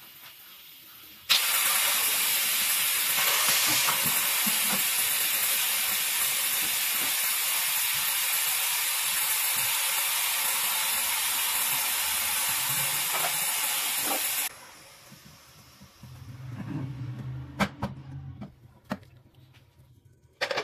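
Pressure cooker letting off steam: a loud, steady hiss that starts suddenly about a second in and cuts off sharply some thirteen seconds later. It marks the cooker at full pressure while the chicken cooks.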